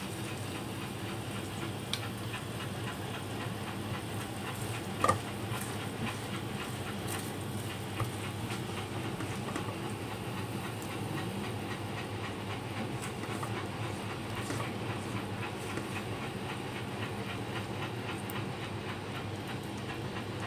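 Oil sizzling and crackling steadily in a frying pan. A utensil clinks once about five seconds in, with a few lighter clicks around it.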